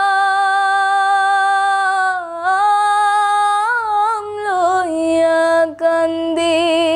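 A young woman singing a Bengali folk song solo, unaccompanied. She holds a long note, winds through ornamented turns in the middle, steps down to a lower held note, takes a quick breath, and ends on a held note with vibrato.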